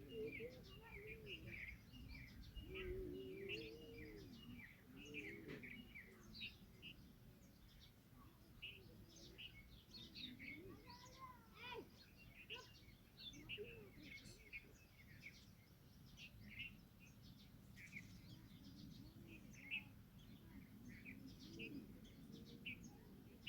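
Faint, busy chirping and twittering of small birds, many short calls following one another without a break.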